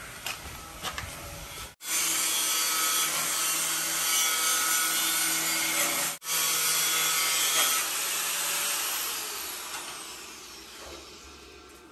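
A power tool cutting: a loud rasping noise with a steady motor hum underneath. It starts suddenly about two seconds in, breaks off sharply around six seconds, comes back, and then dies away over the last few seconds.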